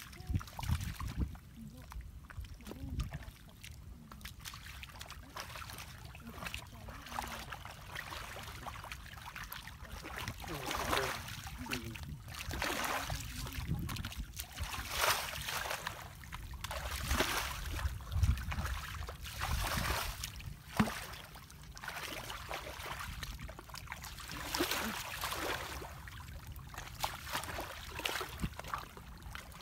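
Shallow muddy water sloshing and splashing as bare feet wade through it and hands grope along the bottom, the splashes coming and going irregularly.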